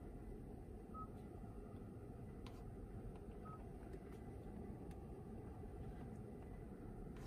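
Short, high touch-confirmation beeps from the Kia Stinger's infotainment touchscreen as menu items are tapped, two of them about two and a half seconds apart, over a steady low background hum.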